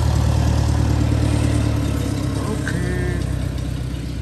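A vehicle engine running steadily with a low, even hum that eases off a little about halfway through.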